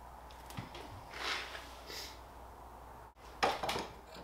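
A sheet-metal strip being bent to a right angle in a bench vise: soft scraping and rubbing of metal, then a quick cluster of sharp metallic knocks about three and a half seconds in.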